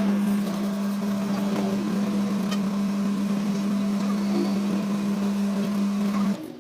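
A machine running with a steady low hum, cutting off suddenly near the end.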